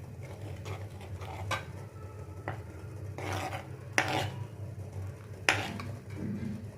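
A spoon stirring and scraping around a pan of thickening cheese soup, with a couple of sharp clinks against the pan.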